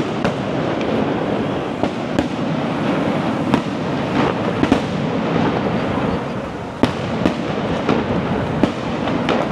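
Aerial fireworks show going off: a continuous rumble of bursts and crackle with sharp bangs at irregular intervals, about one or two a second.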